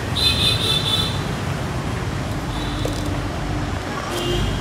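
Road traffic noise: a steady low rumble of passing vehicles, with a few short high-pitched tones, the strongest near the start.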